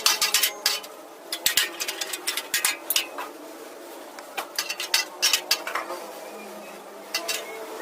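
Irregular sharp metallic taps and clanks on the sheet metal of a damaged pickup bed being worked by hand, with a brief metallic ring after some strikes.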